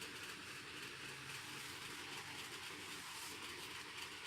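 Faint steady background noise with a low hum, no distinct event.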